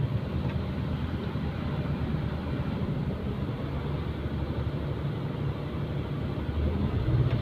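Maruti Suzuki 800's three-cylinder petrol engine running steadily at light throttle with its AC and alternator drive belts removed. The complained-about engine-bay noise is absent, which points the fault toward the belt-driven AC side.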